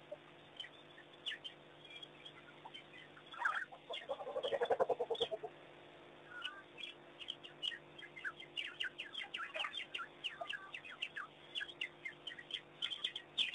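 African wild dogs twittering: many short, high, birdlike chirps, growing thick and rapid over the second half, with a quick pulsed chattering call about four seconds in.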